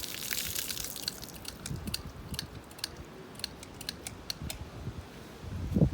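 Hiss of water spraying from the leak fades out in the first second. Then a skeleton gun clicks sharply and irregularly many times as polyolefin sealant is pushed from the tube into the hole to stop the water, with a low thump near the end.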